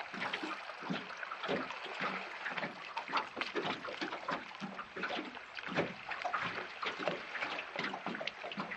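Small waves slapping and lapping against a boat's hull in quick, irregular splashes.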